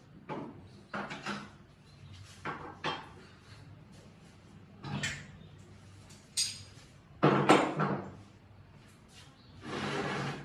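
Metal hand tools set down one at a time on a wooden workbench: a series of separate knocks and clatters, the loudest group a little past halfway as steel C-clamps go down. Near the end comes a short scrape as the old bottle jack is shifted on the bench.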